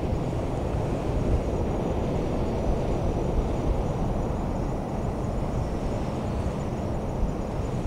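Boeing 777 jet engines: a steady low rumble with a faint high whine above it.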